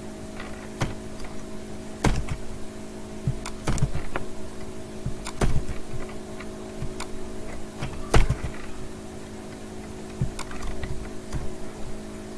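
Computer keyboard keystrokes and mouse clicks while editing text: sharp clicks, spaced out and irregular, the loudest about eight seconds in.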